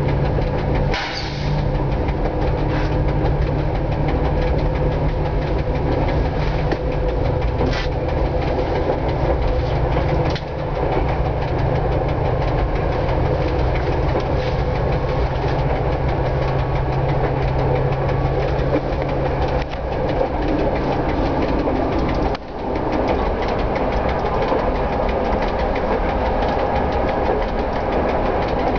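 Inside the cab of a 1960s FIAT diesel railcar running at cruising speed: steady diesel engine hum with the wheels clacking over the rail joints, and constant ticking from the electromechanical speedometer/odometer. A few sharper knocks stand out near the start and around 8 and 10 seconds in.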